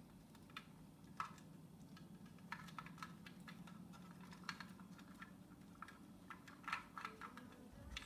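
Light, irregular clicks and taps of an African grey parrot's beak working at a hanging clear plastic foraging toy, some single and some in quick little clusters.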